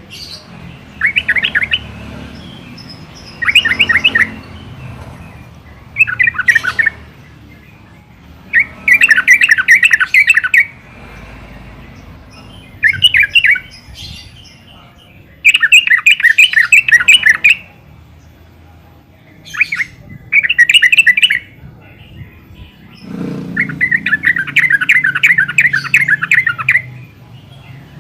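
Yellow-vented bulbul singing in repeated bursts of rapid chattering notes. Each burst lasts from half a second to about three seconds, with short pauses between. A low rumble sits under the longest burst near the end.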